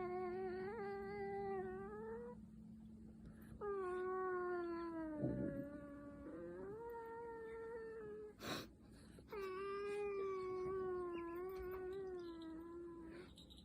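Snoring with a high, steady whistling tone: three long drawn breaths, each a few seconds long, with short pauses between them.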